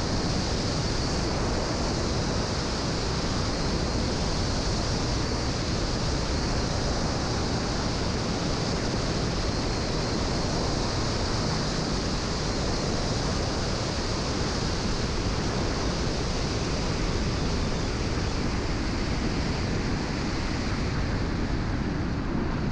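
Steady rush of wind over a microphone mounted on the wing strut of a 1946 Piper J-3 Cub during a low approach and landing. The airflow noise drowns out everything else and holds level throughout.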